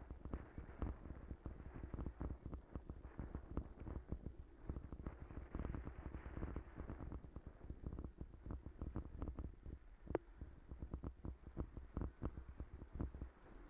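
Bicycle rolling over a street of stone setts, the bike and its handlebar-mounted camera rattling with a rapid, irregular stream of knocks and thuds, with one sharper knock about ten seconds in.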